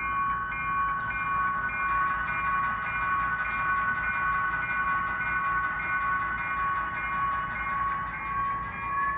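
Model diesel locomotive's onboard sound: a steady engine drone with a bell ringing about twice a second, and a whine that rises in pitch near the end as the locomotive starts to pull away.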